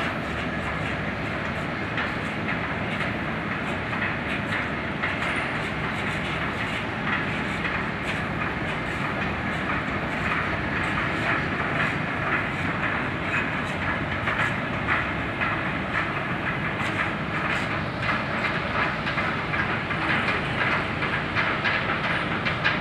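Machinery running steadily with a dense, continuous rattle and clatter.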